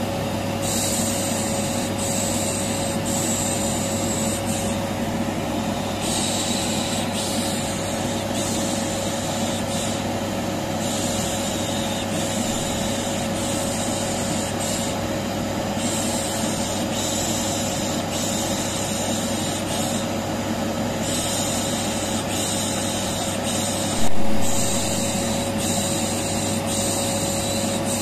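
Vacuum cleaner motor running steadily, with a person's drawn-out "shhh" shushing hisses over it every second or two. There is a brief louder sound about 24 seconds in.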